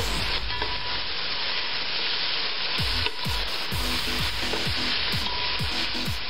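Sliced onions frying in hot oil with a steady sizzle, stirred and turned in the pot with a metal slotted spatula.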